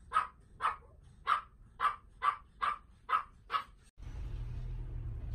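A dog barking over and over, about two barks a second. The barking cuts off just before the end, giving way to a steady low rumble.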